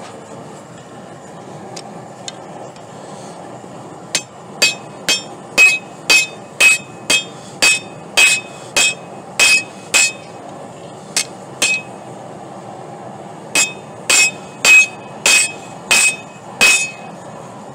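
Hand hammer striking rebar on a Doyle steel anvil, about two blows a second, each with a bright metallic ring. The blows come in runs: about a dozen, a short pause, two more, then six.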